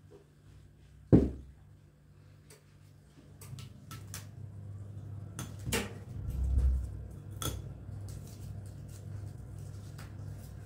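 Objects being handled: a sharp knock about a second in, then scattered clicks and a few more knocks, over a low hum that comes in partway through.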